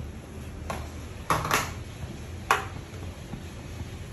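A cooking ladle clinks and knocks against a stainless steel stockpot a few times, three or four short sharp strikes, over a steady low background hum.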